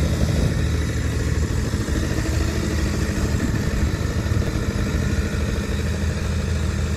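Engine of an off-road trial buggy running steadily with a low, even hum as the buggy drives slowly through mud, with no hard revving.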